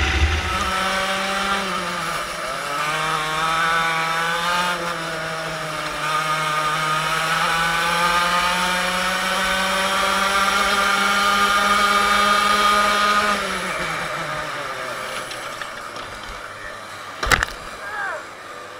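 Go-kart engine at high revs on the throttle, its pitch dipping briefly, then climbing slowly and holding before falling away as the throttle comes off. A single sharp knock comes near the end.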